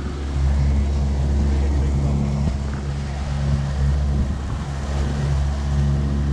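Motorboat's engine running at a steady speed, a constant low drone with a rushing noise over it.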